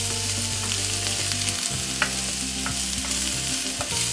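Diced onion sizzling in hot vegetable oil in a pan, a steady frying hiss. A few sharp clicks, about two seconds in and near the end, come from a utensil against the pan.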